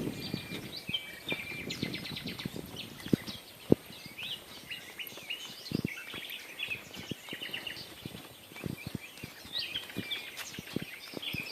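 Small birds chirping and trilling continuously, with scattered sharp low knocks throughout, the loudest a little over a third of the way in.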